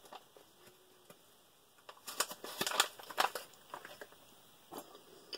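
Food packaging crinkling and crackling off to the side in a short cluster about two seconds in, then a few scattered clicks.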